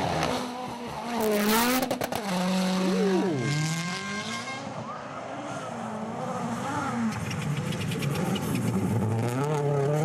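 Rally1 rally cars' turbocharged four-cylinder engines at full throttle on a gravel stage, their pitch rising and falling repeatedly through gear changes. Sharp pops and crackles come in bursts, most thickly in the last few seconds, with tyres sliding on gravel.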